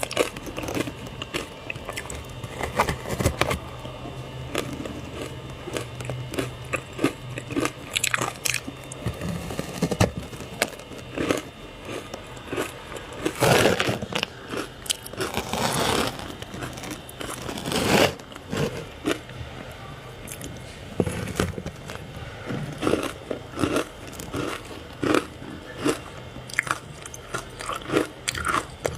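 Ice being bitten and chewed: a run of irregular crisp crunches and cracks, with a few louder, longer crunches near the middle.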